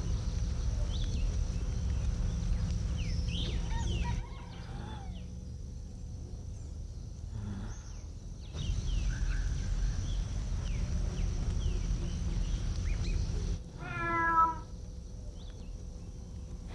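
A cat meows once, a single drawn-out call about three-quarters of the way through, over a low steady rumble that drops away for several seconds in the middle.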